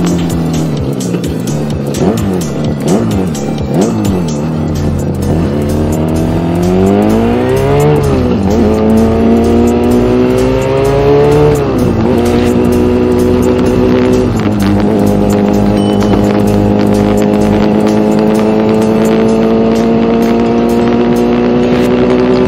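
Two-stroke 250 cc Yamaha engine in a Honda Gorilla minibike, heard from the bike while riding: the engine note wavers, then climbs hard under acceleration, dropping sharply at gear changes about 8 and 12 seconds in and again near 14 seconds. After that it settles into a nearly steady note that slowly rises as the bike cruises.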